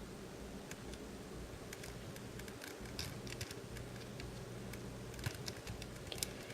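Faint, scattered clicks and taps of small plastic action-figure parts being handled and pushed into place, over a low steady hum.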